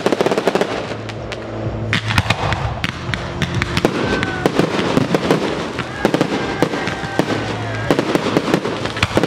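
Aerial firework shells and comets going off in a dense barrage: many sharp bangs and pops in quick succession, with crackling between them.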